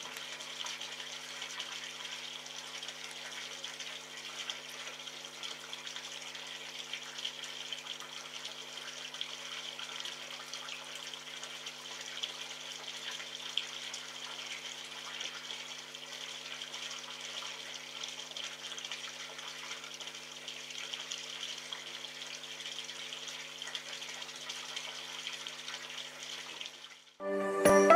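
Steady hiss, like running water, over a low steady hum. Music starts in the last second.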